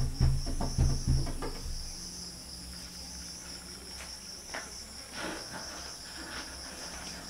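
Crickets chirring as a steady high drone. In the first second and a half, a quick series of low, heavy thumps, about three a second, is the loudest sound; a few faint scratchy clicks follow later.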